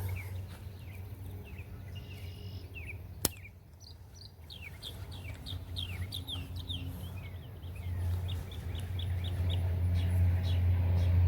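Small birds chirping in rapid series of short, falling chirps, over a steady low rumble that grows louder near the end. A single sharp click sounds a little over three seconds in.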